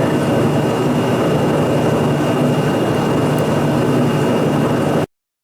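Milling machine running steadily, a dense mechanical noise with a thin steady high whine, cutting off suddenly about five seconds in.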